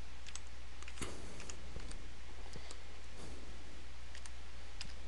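Keystrokes on a computer keyboard: single key clicks at irregular spacing as characters are typed, over a steady low hum and hiss.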